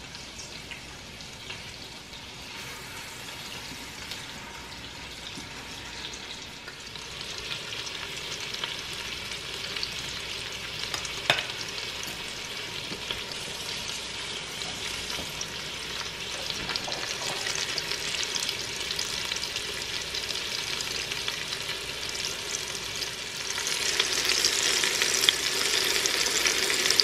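Bone-in, skin-on chicken thighs sizzling in butter in an Instant Pot on its sauté setting as they brown. The sizzle grows louder through the stretch, with a step up near the end and a single sharp click about eleven seconds in.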